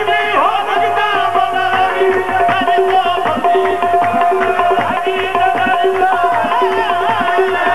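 Qawwali music: a harmonium holding steady notes over quick tabla strokes, with a male lead voice singing into the microphone.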